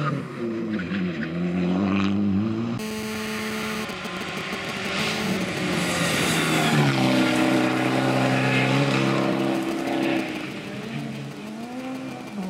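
Fiat Abarth 500 R3T rally car's turbocharged 1.4-litre four-cylinder engine at full throttle, its pitch climbing and dropping through gear changes. About three seconds in the sound cuts abruptly to a second pass, where the car approaches, is loudest in the middle and drops in pitch as it goes by.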